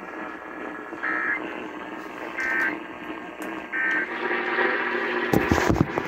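AM radio playing the Emergency Alert System end-of-message signal: three short bursts of warbling data tones about a second and a half apart over steady AM hiss, marking the close of the EAS test. Near the end, a cluster of loud knocks and rustling.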